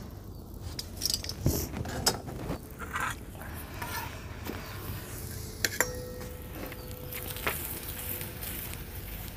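Steel utensils clinking and scraping at intervals: a metal spatula and spoon working on a large iron griddle, and spoons against steel plates and bowls. One knock about halfway through leaves a ringing tone that lasts over a second.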